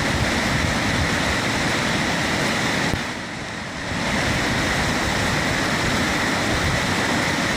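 River rapids rushing steadily, a dense roar of white water that eases briefly for about a second around three seconds in.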